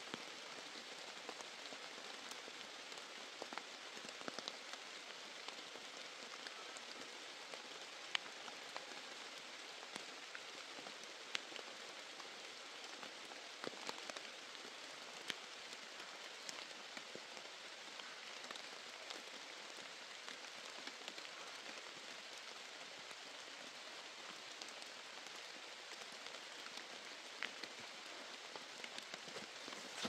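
Steady rain falling, an even hiss with scattered sharper drop sounds.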